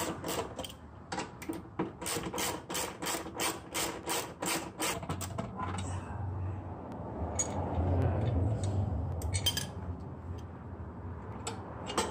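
Ratchet wrench clicking rapidly, about four clicks a second, as it backs out a bolt on an exhaust hanger bracket. The clicking stops about five seconds in, giving way to a low rumble with a few scattered clicks and knocks.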